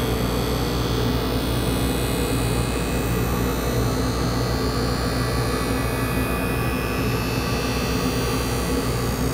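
Skate-sharpening machine running steadily, its grinding wheel and dust extraction humming and hissing. A hockey skate blade is drawn slowly along the wheel for the finishing pass.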